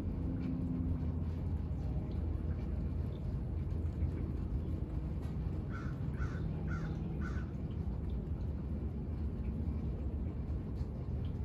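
A crow cawing four times in quick succession about halfway through, over a steady low background rumble.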